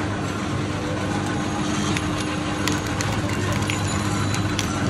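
A motor running with a steady low hum amid busy street noise, with scattered light clicks.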